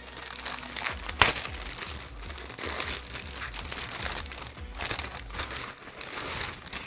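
Plastic packaging bag crinkling and rustling in repeated bursts as it is handled and pulled open, with one sharp, loud crackle about a second in.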